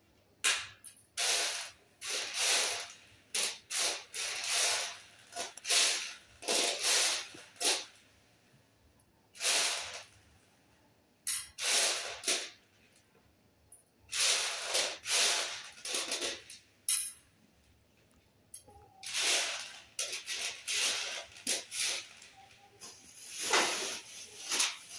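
Dried beans rattling and sliding across a metal tray as fingers rake through them to sort them, in irregular short rushes with brief pauses between.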